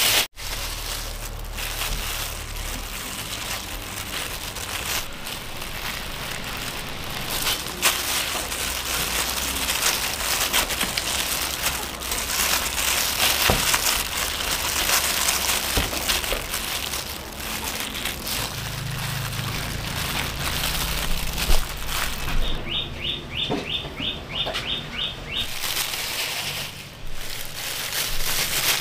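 Thin plastic gloves crinkling and loose grains of soaked purple sticky rice rustling and shifting as dough balls are rolled in the rice to coat them.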